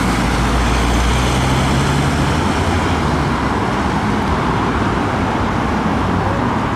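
Steady road traffic noise, with a low engine drone strongest in the first two seconds.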